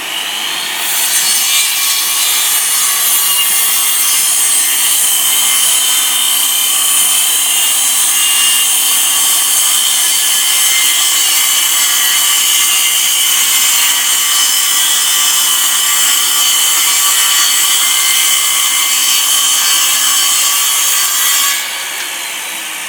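Bosch circular saw cutting through wood: a steady motor whine under a dense, high hissing rasp of the blade in the cut, held for about twenty seconds. Near the end the sound drops in level and loses most of its hiss as the saw runs on.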